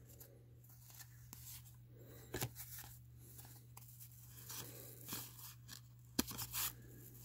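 1987 Fleer baseball cards being thumbed through by hand: faint sliding and rustling of card stock, with a few sharp clicks as the cards snap past one another, one a little over two seconds in and a couple near the end.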